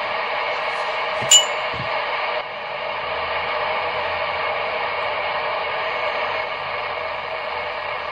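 FM receiver hiss from an SDR radio tuned to a UK FM CB channel with the squelch open between transmissions: a steady, band-limited rush of static. A short sharp click with a high ringing tone cuts in about a second in.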